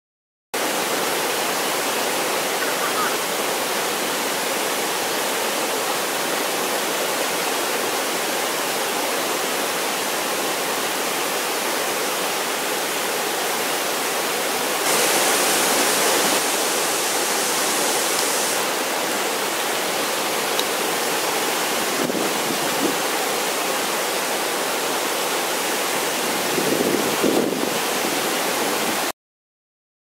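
A waterfall in high flow: a steady rush of falling water that briefly grows louder and hissier for a few seconds midway, with a couple of brief knocks near the end before it cuts off abruptly.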